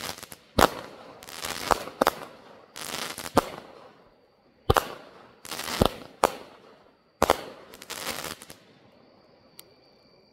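A 200-gram consumer fireworks cake (11 shots) firing its last shots: about eight sharp bangs over seven seconds, each trailing off into a hiss. The bangs end by about nine seconds in, leaving a faint steady insect trill.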